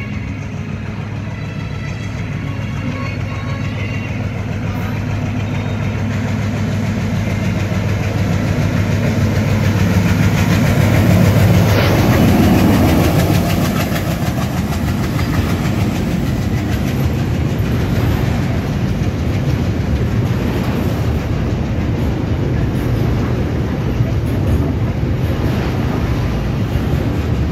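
Locomotive approaching and passing close by, its engine drone building to its loudest about twelve seconds in, then the steady rumble and clickety-clack of the car-carrier freight wagons rolling past.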